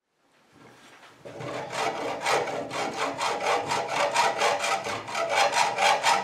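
Hacksaw cutting a slot into the body of a lead toy cow clamped in a vise, in quick even back-and-forth strokes, about four a second. It starts faintly about half a second in and runs steadily from about a second in.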